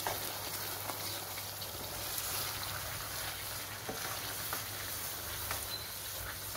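Moong dal halwa sizzling in ghee in a nonstick pan while a wooden spoon stirs and scrapes through it, a steady hiss with faint scattered ticks, as the dal takes up the sugar syrup.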